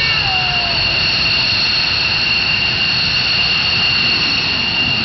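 Loud, steady rushing noise with two high, unchanging whining tones and a low rumble underneath: the 'strange sound from the sky' recorded at Halim Perdanakusuma.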